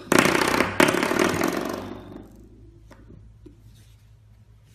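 Spring door stop twanged twice by a puppy pulling at it with its mouth, giving a loud buzzing rattle that dies away over about two seconds.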